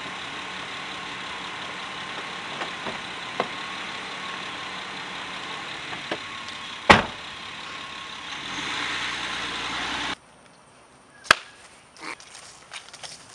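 A car door is shut with a single loud thump about seven seconds in, over a steady background hum. After a sudden drop in level, footsteps on grass follow, with a sharp click.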